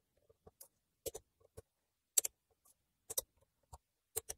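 Small torque wrench clicking as the Torx bolts on a BMW N42 exhaust VANOS unit are tightened to 10 Nm. Sharp clicks come about once a second, some in quick pairs.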